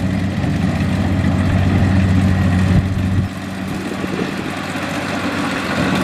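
Kubota DC70 rice combine harvester's diesel engine running steadily as it cuts rice, a low humming note that drops a little in level a little past halfway through.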